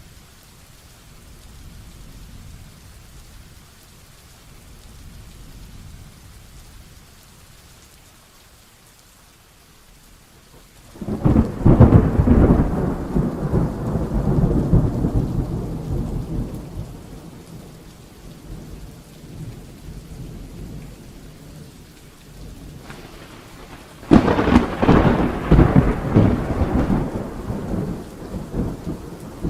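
Heavy rain falling steadily, with two loud claps of thunder: the first about eleven seconds in, rumbling away over several seconds, the second a few seconds before the end.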